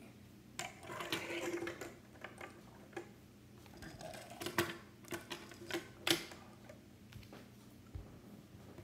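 Hot Wheels Monster Truck Minis plastic toy trucks being set down and shuffled into a row on a wooden table: scattered light clicks and taps at irregular intervals.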